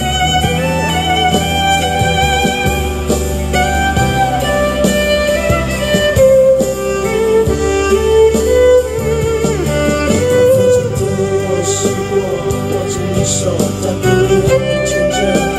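Solo violin playing a slow pop melody with vibrato on the held notes, over a backing track with a steady bass line.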